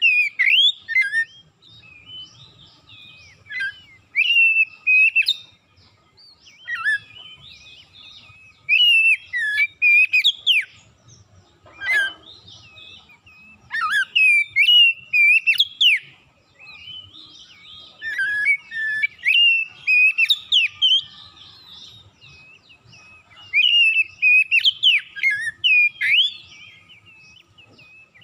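Oriental magpie-robin singing: bursts of rapid, varied whistled phrases with quick pitch slides, repeated every few seconds with short pauses between.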